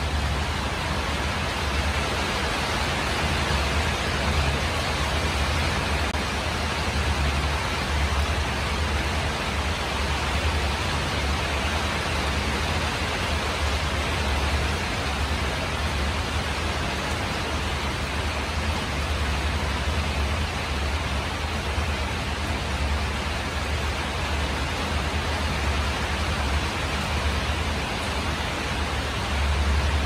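Steady rain falling on a tin roof, an even hiss with a low rumble underneath.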